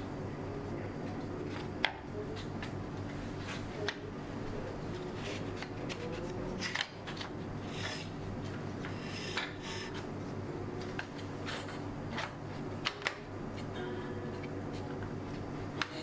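Thin notched wooden kumiko strips being fitted together by hand into a lattice grid: scattered light clicks and taps of wood on wood as the half-lap joints are pressed home, with faint rubbing, over a steady low hum.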